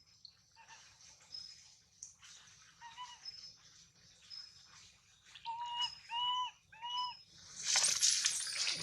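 Baby monkey calling: a few short arched calls about five to seven seconds in, then a loud, shrill cry near the end.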